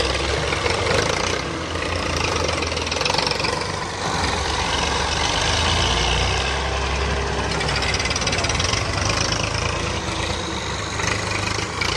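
Farm tractor's diesel engine running steadily: a continuous low rumble with a rough hiss above it.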